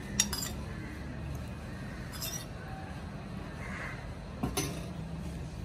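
A metal spoon clinking lightly against a ceramic plate, three short clinks spread over a few seconds, over a steady low background hum.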